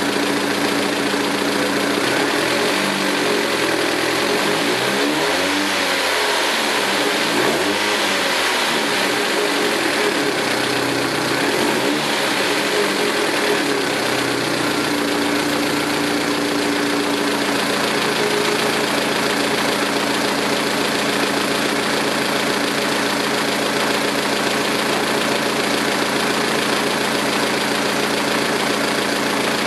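The 2006 Saturn ION Redline's supercharged 2.0 L Ecotec LSJ four-cylinder running steadily with a lifter tick. The tick comes from stock hydraulic lifters paired with aftermarket GMR camshafts, which the owner thinks calls for solid lifters.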